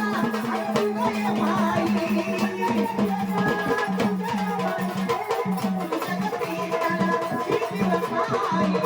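Marathi folk devotional music with a steady hand-drum rhythm under a melodic line.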